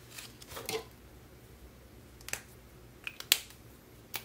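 One-dollar paper bills being handled and counted: a soft rustle of paper, then several crisp, separate snaps, the loudest about three seconds in.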